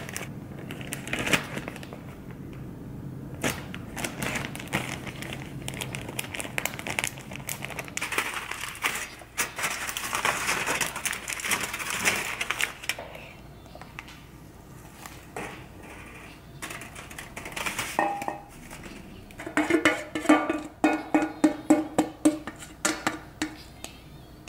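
Kitchen handling sounds: a plastic zip-top bag rustling, then aluminium foil crinkling as it is pressed into a wire-mesh air-fryer tray. Near the end comes a quick run of short, regular pulses lasting a few seconds.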